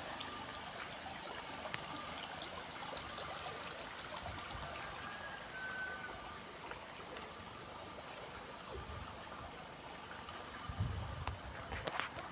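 Steady rushing of a small forest stream, with faint high chirps over it. Low thumps come in near the end.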